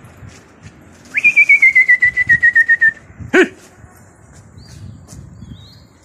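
A trilling whistle from the pigeon keeper, signalling his flock in flight, warbling rapidly and sinking slowly in pitch for nearly two seconds. A short, loud call with a rising pitch follows about a second later, and there are faint bird chirps near the end.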